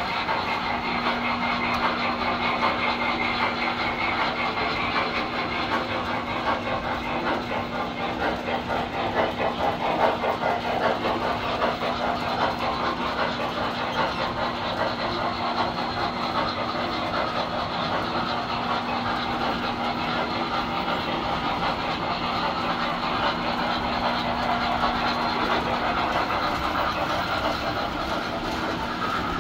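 Tinplate electric model trains running on three-rail metal track: a steady whir of motors and gears with rapid clicking of wheels over the rail joints. A steady low hum runs underneath and drops out near the end.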